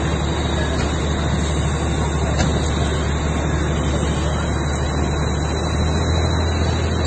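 Steady low engine rumble with an even hiss of water spraying from a fire hose onto a burning building.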